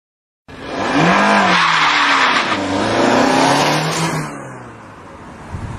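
A car engine revving up and down under a loud hiss, tagged as skidding and tyre squeal, starting about half a second in and fading after about four seconds.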